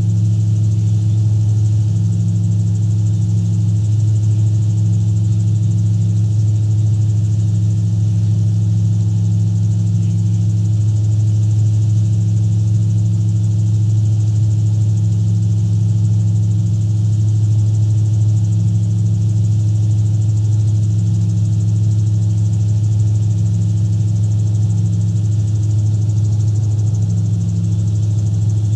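Gyrocopter's engine and pusher propeller droning steadily in cruise flight, with a slow waver every couple of seconds, heard from inside the cockpit.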